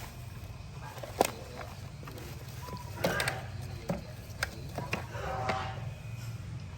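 Scattered sharp clicks and knocks, the loudest about a second in, with short rustling bursts, over a steady low hum.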